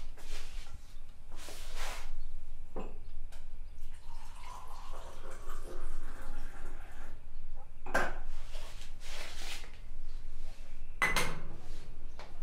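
Hot drink poured from a small saucepan into a mug, the stream rising slightly in pitch as the mug fills, with a few sharp knocks and clinks of the pan, mug and spoon on the table.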